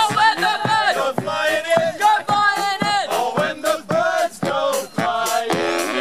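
Music: a group of voices singing or chanting together over a steady beat.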